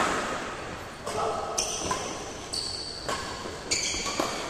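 Badminton rackets striking a shuttlecock in a fast doubles rally, about six sharp hits in quick succession that echo in the hall. Short high squeaks of shoes on the court follow several of the hits.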